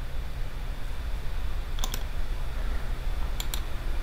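Computer mouse clicking: two quick pairs of sharp clicks, about a second and a half apart, over a steady low hum.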